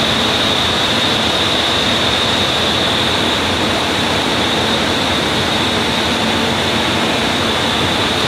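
CNC router machining center running: a steady, loud machine noise with a constant high whine.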